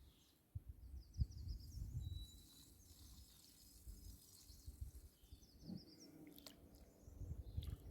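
Faint bird song: a short phrase of rapid high chirps, heard twice, over a low uneven rumble.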